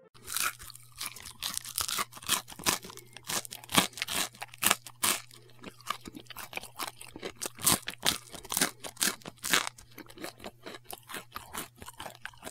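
Thin clear plastic packaging crinkling and crackling in quick irregular bursts as a cat noses and nibbles at a chocolate box's plastic tray and cellophane wrapper.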